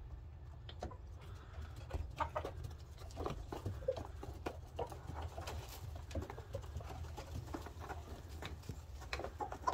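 A flock of chickens pecking feed from a pan: a rapid, irregular patter of beak taps, with soft clucks now and then.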